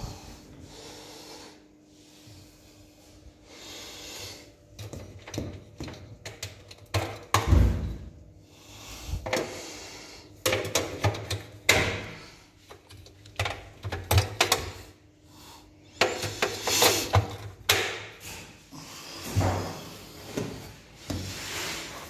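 Irregular clicks, knocks and rattles of plastic parts being handled on a new Haier top-loading washing machine, its lid and drum moved by hand, with a louder knock about seven seconds in.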